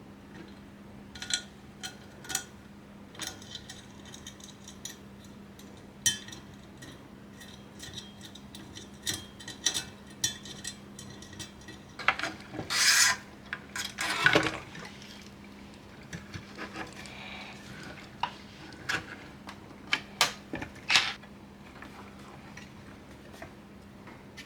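PC parts and small metal hardware handled and fitted into an aluminium case: scattered sharp clicks and clinks, with a longer rubbing scrape around the middle.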